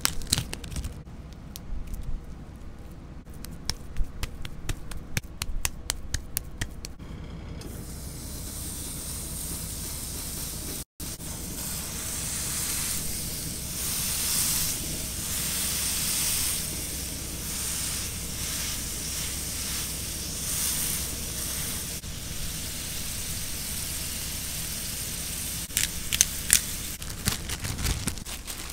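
Ground beef smash-burger patty sizzling in a hot cast iron skillet as it is pressed flat, a steady hiss. This comes after a few seconds of plastic wrap crinkling as the meat is unwrapped. Near the end a plastic bread bag crinkles.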